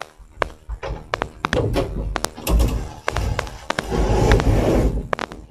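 A run of knocks, taps and thuds with rumbling, rustling noise, loudest in the second half.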